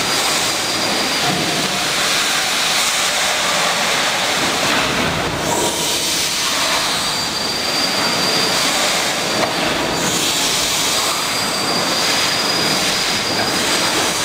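Horizontal steam winding engine of a coal-mine shaft lift running: a steady, loud hiss and rumble of steam and moving rods, with faint held whining tones in it.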